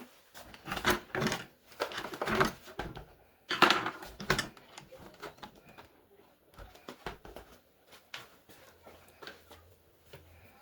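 Plastic housing parts of a Bissell carpet cleaner being pried and handled with a flat screwdriver: a run of clicks, knocks and rattles, loudest in clusters in the first few seconds, then thinning to scattered ticks.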